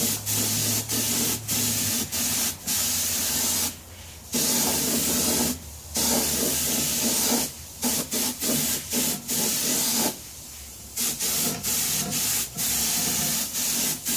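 Compressed-air paint spray gun hissing in on-and-off bursts as the trigger is pulled and released, with a few longer pauses, while a second light coat of paint goes onto a wheel rim.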